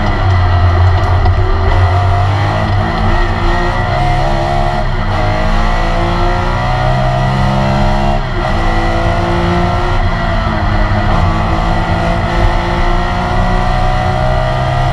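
Air-cooled flat-six engine of a classic Porsche 911 RSR race car, heard from inside the cockpit at full throttle. The revs climb through the gears, with upshifts about a third of the way in and just past halfway, then pull on and keep rising.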